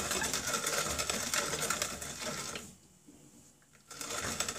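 Hand-cranked FlicFloc grain flaker pressing buckwheat and oats between its rollers: a fast, steady rattling crunch while the crank turns. It stops for about a second a little past halfway, then starts again.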